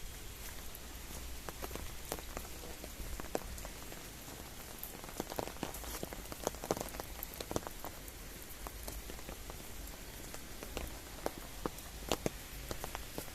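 Rain falling steadily, a hiss with many irregular sharp ticks of drops hitting surfaces close by.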